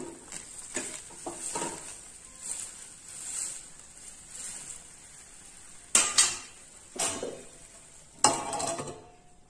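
A steel ladle stirs noodles in hot broth in a steel pan, with a few sharp clinks of metal on metal about six and seven seconds in. Near the end a steel lid is set on the pan with a clang that rings briefly.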